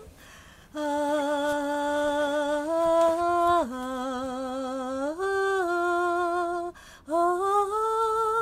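Background music: a single wordless voice sings a slow melody in long held notes with a slight waver, stepping up and down in pitch, with a short break about seven seconds in.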